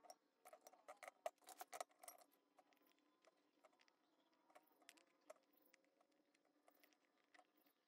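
Near silence with faint light clicks and taps, a cluster in the first two seconds and a few more around the middle: metal tweezers and a soldering iron tip touching a circuit board and its parts during hand soldering of surface-mount components.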